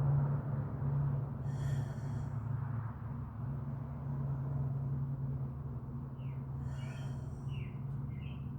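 A steady low hum runs throughout. Short bird calls and chirps sound over it: one call about two seconds in, then a quick cluster of falling chirps and another call near the end.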